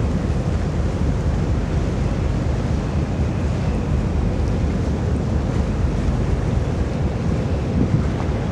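Steady low rumble of a car ferry under way, with wind buffeting the microphone and the wash of water along the ship.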